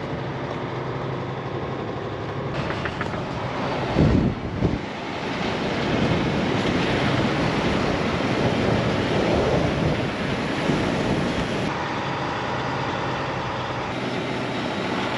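Livestock truck with a loaded sheep crate driving across a paddock: its engine running steadily under body and crate noise, with a louder thump about four seconds in.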